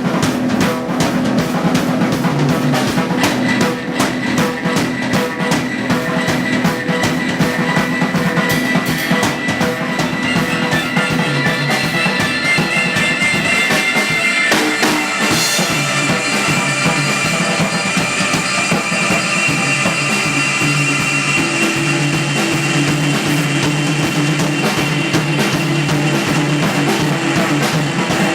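A band playing live: a drum kit keeps a steady beat under sustained bass and melodic notes.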